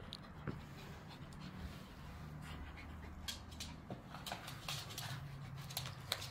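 Small long-haired dog panting while playing, with scattered short sharp clicks.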